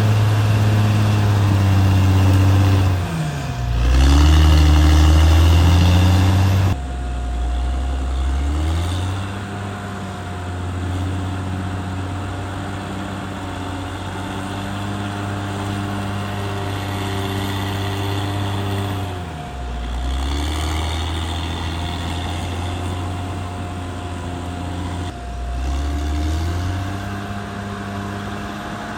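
CAT D6R XL bulldozer's diesel engine running under work, its pitch sagging and climbing again several times as the engine is loaded and revved. There is a sudden change in level and tone about seven seconds in.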